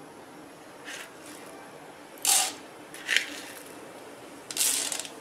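Dry urad dal being scooped with a spoon from a small steel cup and tipped into a steel kadai: short gritty rattles and scrapes of lentils on metal. The loudest come about two seconds in, again a second later, and near the end.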